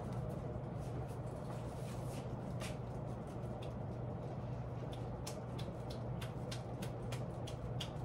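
52-inch Hunter Original ceiling fan running at speed: a steady motor hum and the rush of air off the blades, with scattered faint clicks.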